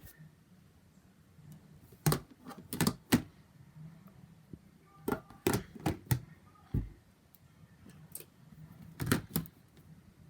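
Fidget toys being handled and put into a bin: scattered sharp clicks and knocks in a few clusters, with a duller thump about seven seconds in.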